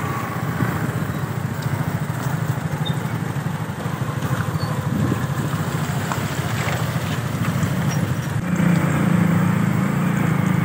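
Motorcycle engine running as the bike moves slowly through traffic, a steady fast low pulse over road noise. It gets louder about eight and a half seconds in.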